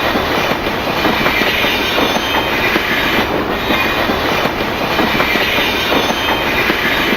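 Train running along rails: a steady rattle and rumble with wheels clicking over the track, which cuts off suddenly at the end.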